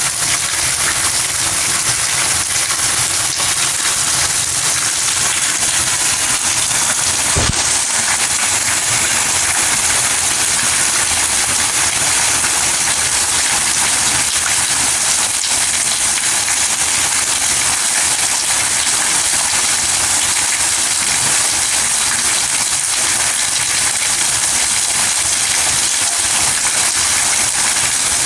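Steady rain falling, an even hiss, with a single short click about seven seconds in.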